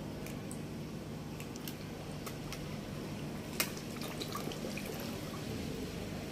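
Koi splashing at the water surface as they crowd and thrash together: a scatter of small splashes and drips, with one sharper splash about three and a half seconds in, over a steady low background noise.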